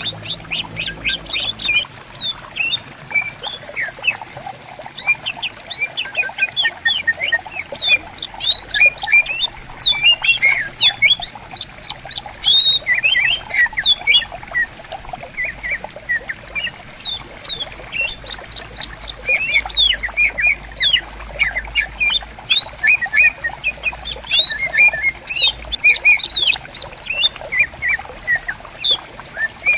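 Green leafbirds (cucak ijo) singing and answering one another in a dense run of rapid, varied chirps and whistles, over a gently trickling stream.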